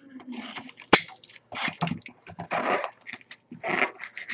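Box cutter slicing open the shrink wrap of a hockey card hobby box, with a sharp click about a second in, followed by bursts of plastic wrap and cardboard rustling as the box is opened.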